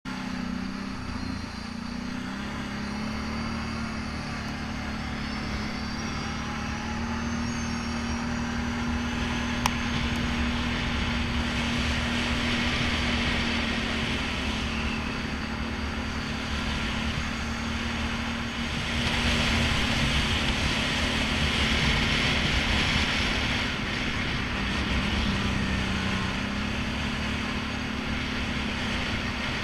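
ATV engine running at a steady cruising pace with small shifts in pitch, over a rushing noise of tyres on gravel that swells and fades; a single sharp click about ten seconds in.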